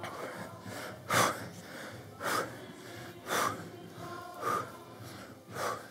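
A man's short, forceful exhales, five of them about a second apart, one with each knee-to-elbow drive of a spider mountain climber in a plank: effort breathing during the exercise.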